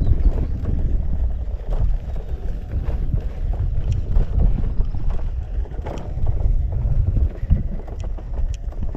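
Electric unicycle being ridden: a steady low rumble of wind on the microphone and the tyre rolling over the track, with scattered short clicks and knocks.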